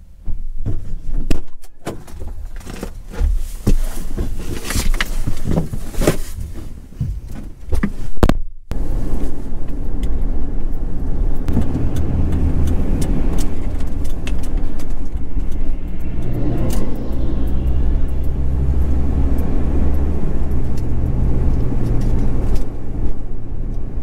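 About eight seconds of clicks and rattles inside a pickup's cab. Then the 2003 Ford F-250 Super Duty's 6.8-litre V10 runs steadily as the truck drives, heard from inside the cab, its low hum shifting in pitch a couple of times.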